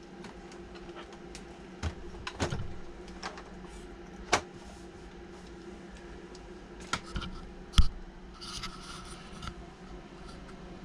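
Handling noise from a Redcat Gold Digger RC lowrider being turned over and set down on a tabletop: a few light clicks and knocks, the sharpest about eight seconds in, followed by a short rustle, over a faint steady hum.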